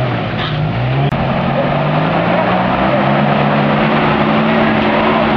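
Off-road vehicle's engine running, its pitch climbing slowly from about a second in and then holding steady. A brief dropout cuts the sound just after a second.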